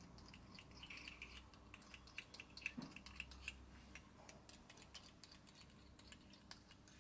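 Faint, scattered light clicks and taps from a small bottle of paint wash being handled on a workbench.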